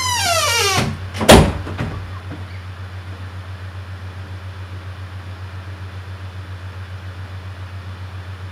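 Wooden interior door swinging shut, its hinges giving a falling squeak, then closing with a loud bang a little over a second in. A steady low hum follows.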